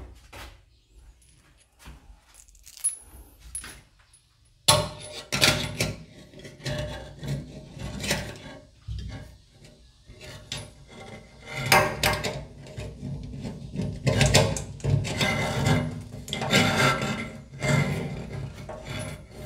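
Metal clinking, jangling and rubbing as a stainless steel faucet's braided supply hoses and fittings are handled and fed through the sink. A few faint clicks first, then busier handling noise from about five seconds in.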